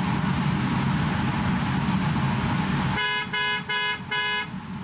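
Steady rumbling factory noise, then about three seconds in a car horn gives four short toots in quick succession, about 0.4 s apart, and the rumble drops away.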